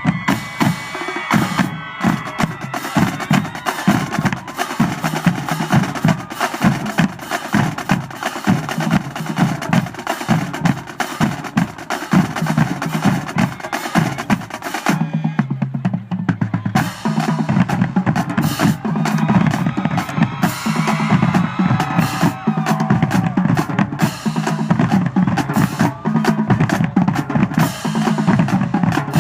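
High school marching drumline playing a fast, loud cadence: rapid snare drum strokes and rolls over bass drums. About halfway through the high snare sound drops out for a couple of seconds, leaving the lower drums, then comes back in.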